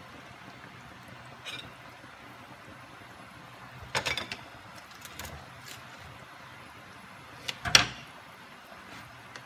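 A faint steady background, likely a pot of soup simmering, broken by a few sharp kitchen knocks and clunks: one about a second and a half in, a small cluster around four seconds, and the loudest double clunk near the end.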